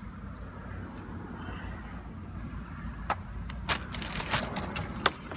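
Light handling noise of plastic items in a plastic bucket: sharp clicks and knocks, starting about three seconds in, as things are handled and pulled out. A steady low rumble runs underneath.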